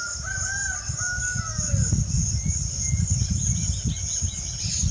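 A rooster crows once, a call of about two seconds at the start, over the steady high chirring of crickets.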